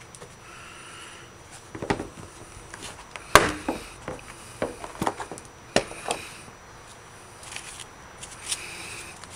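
Hands handling a boxed flashlight and its packaging: irregular sharp clicks and knocks, about half a dozen, the loudest about three and a half seconds in, with a few short rustles between them.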